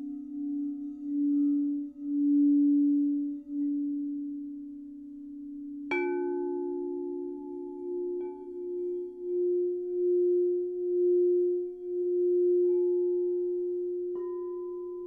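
Singing bowls ringing: a low, sustained tone swells and fades in slow pulses, then a bowl is struck about six seconds in and adds a higher ringing tone with bright overtones. Lighter strikes follow a couple of seconds later and again near the end, each layering in another ringing tone.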